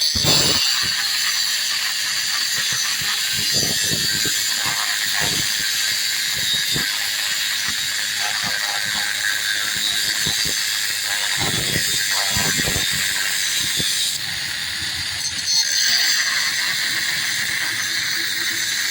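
Cutting disc on an angle grinder running steadily through the steel rear wheel stay of a Honda Dream Yuga, a continuous high hiss with occasional knocks. The hiss eases briefly about 14 seconds in, then resumes.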